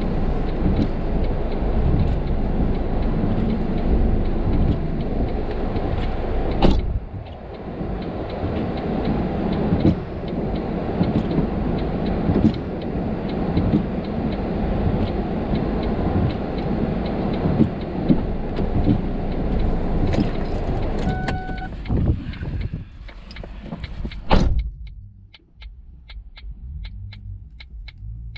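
Car cabin noise while driving on a snowy highway, a steady loud rush with low rumble, broken by a few sharp knocks. About three seconds before the end the rush drops away, leaving a quick, even ticking of about two to three ticks a second.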